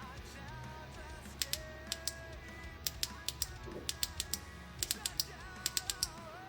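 Tail button of a Ripsshine EL1 flashlight pressed over and over, a quick irregular run of about twenty sharp clicks starting about a second and a half in, as it steps through its brightness modes. Quiet background music plays underneath.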